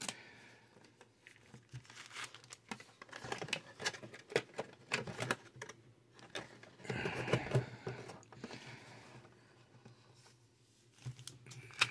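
Trading-card booster box and its foil packs being handled by hand: scattered light clicks and taps, with a denser stretch of crinkling about seven seconds in.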